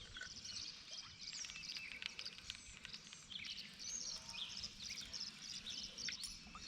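Faint chorus of birds chirping, many short repeated calls, over low outdoor background noise.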